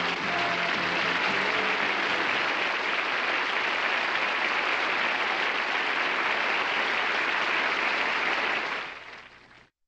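Studio audience applauding steadily, with the band's last notes dying away in the first second or so. The applause fades out and cuts off near the end.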